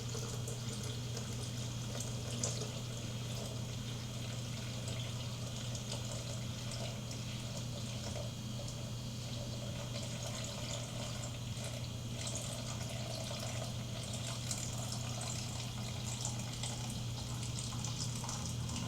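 Tap water running steadily into a container of Soylent powder as it fills.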